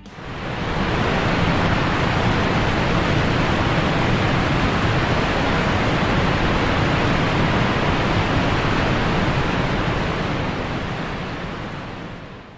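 Whychus Creek waterfall: the steady rush of heavy falling water. It fades in at the start and fades out near the end.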